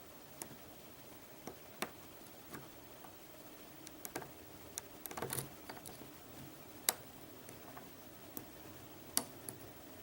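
Lock pick clicking and scraping against the pins of a Mul-T-Lock Interactive cylinder as it is picked: scattered light clicks, with a quick run of them about five seconds in.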